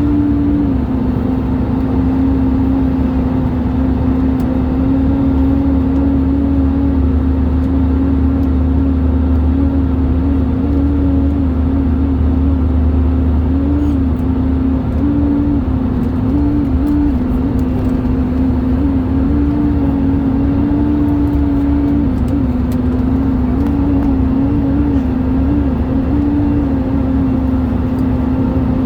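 Airbus A320 cabin in flight: a loud, steady hum at one pitch that wavers slightly up and down, over a low rumble. It is an unexplained strange noise in the cabin during turbulence.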